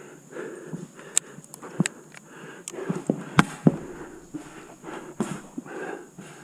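Footsteps of a player moving about, roughly two steps a second, with several sharp pops scattered through: paintball shots on the field.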